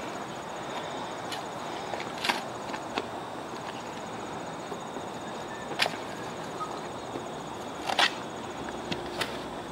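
A steel shovel working loose, freshly dug soil by hand to backfill a hole, with a handful of short, sharp scrapes and chops of the blade, the loudest about eight seconds in.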